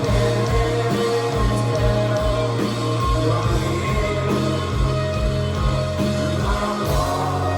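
A rock band playing live, with a steady kick-drum beat under bass and guitar. Near the end the drums drop out, leaving held low notes ringing.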